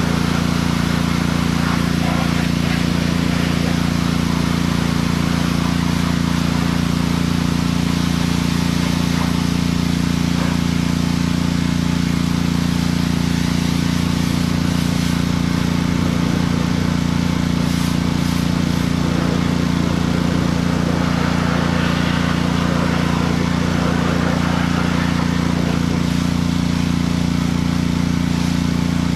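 Pressure washer running steadily at a constant pitch, with the hiss of its spray from the wand.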